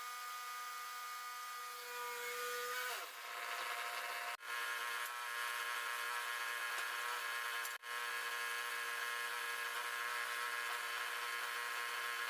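Wood-Mizer LT10 bandsaw mill running steadily. About three seconds in its pitch drops and the sound turns noisier as the band blade works through the black walnut log.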